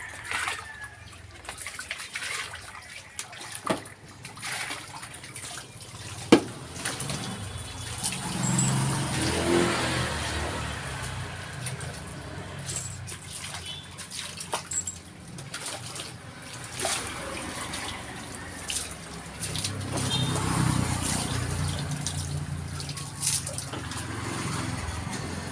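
Water splashing and dripping while a dog is washed, with scattered short clicks and knocks.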